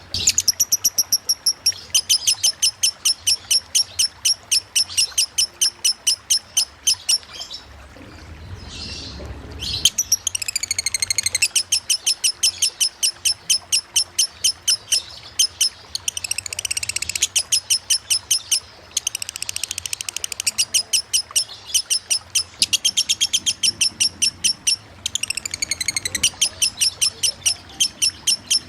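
Lovebird singing its long ngekek chatter: runs of rapid, evenly repeated high notes, about four a second, with a pause of a few seconds about a third of the way in and shorter gaps later.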